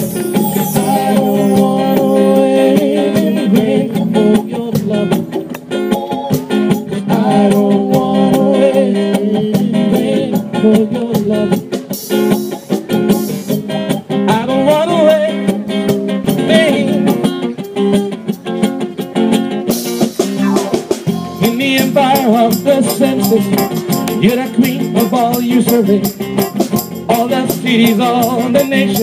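Live band playing: electric keyboard, congas, drum kit and acoustic guitar together, held chords over steady percussion.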